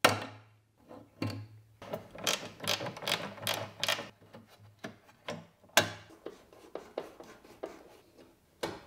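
Socket-wrench ratchet clicking in short, irregular runs as a 10mm bolt is undone, among small knocks of tools and trim being handled.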